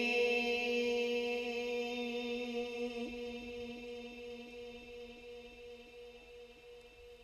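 A man's long chanted note in Qur'anic-style recitation, held at one steady pitch and ringing on through a heavy echo on the sound system, slowly fading away.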